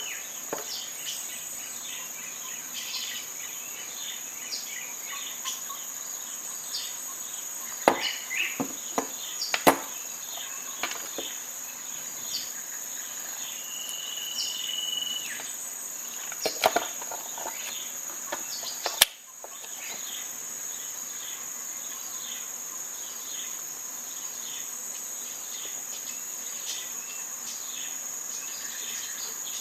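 A steady, high-pitched chorus of crickets or other insects chirring. A short whistled bird note comes about halfway through, and a few sharp clicks and knocks fall between about 8 and 19 seconds in.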